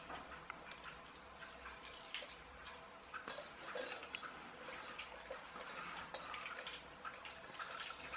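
Faint, irregular small clicks and scratches of wires and a small screwdriver being handled against a plastic screw-terminal connector block.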